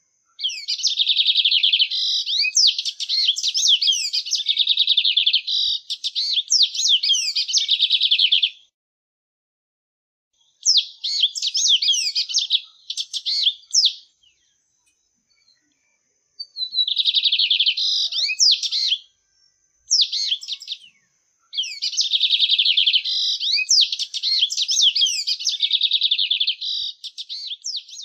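Sporophila seedeater singing long, rapid, twittering trilled phrases in several bouts with short pauses between them, and a faint steady high tone behind some phrases.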